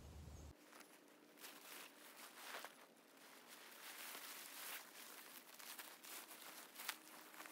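Near silence with faint, irregular rustling and crackles; a low rumble cuts off suddenly half a second in.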